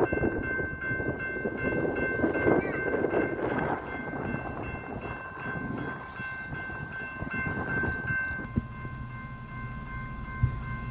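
Single-car diesel railcar running past, a rumble with wheel clatter, while steady ringing tones sound alongside and stop about eight seconds in.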